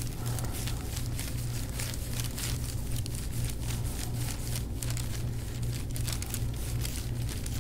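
Soft tissue of the upper back crunching under a forearm pressed into a tight knot: a run of quick, irregular crackles, over a steady low hum. The chiropractor takes the grainy crunch for overstressed tension in the muscle.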